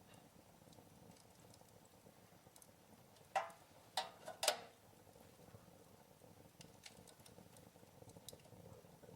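Wood fire crackling softly: a low hiss with scattered faint ticks, and a quick run of four louder pops a little before halfway through.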